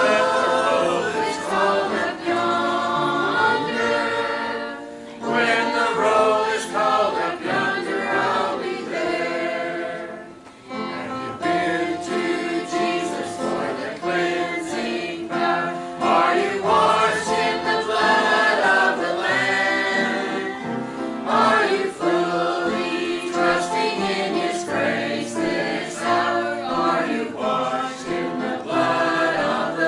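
Small mixed choir of men and women singing a gospel hymn together, with a brief break between phrases about ten seconds in.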